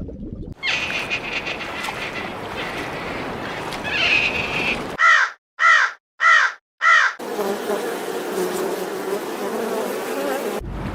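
A bird gives four harsh calls about half a second apart, partway through, between stretches of steady outdoor background noise.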